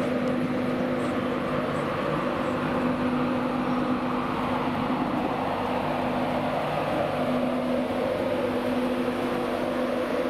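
LNER Class 91 electric locomotive and its Mark 4 coaches running past close by on the platform road: a steady electric hum with the rumble of wheels on rail.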